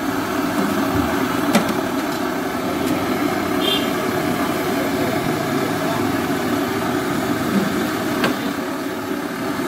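Steady mechanical hum with indistinct voices in the background and a couple of sharp clicks.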